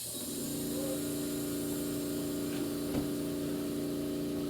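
Small electric air compressor running with a steady hum as it pumps air into the pressure chamber of a homemade airsoft rocket launcher. There is a faint tick about three seconds in.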